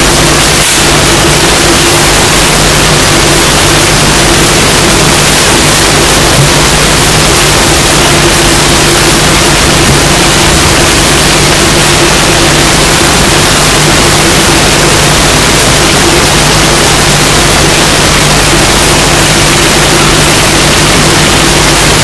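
Loud, steady hiss of noise with a low hum under it that does not change.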